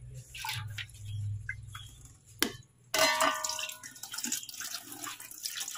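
A few knocks and a sharp click over a low hum, then water starts running suddenly about three seconds in and keeps running.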